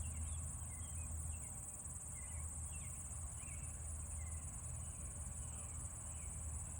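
Steady, unbroken high-pitched trilling of crickets in tall weeds, with faint short chirps sounding underneath.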